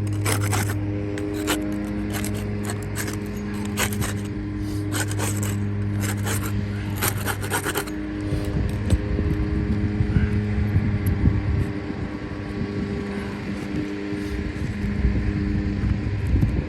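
A machine running with a steady hum, with repeated scraping and sharp clicks over roughly the first eight seconds, as of work on the cracked part being removed.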